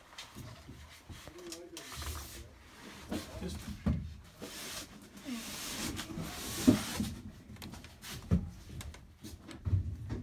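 Hands working the stem of a chrome single-handle shower valve: scattered clicks and knocks of metal and plastic parts with rustling handling noise, the sharpest click a little past the middle.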